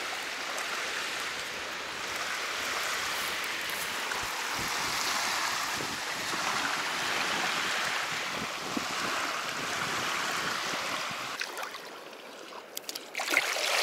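Small waves washing steadily onto a sandy shore. Near the end it quietens, with a few short splashes of a hand in shallow water.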